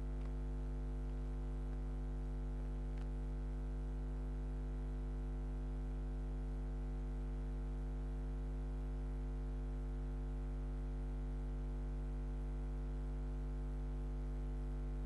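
Steady electrical hum, low and unchanging, with a stack of constant overtones above it and a faint tick about three seconds in.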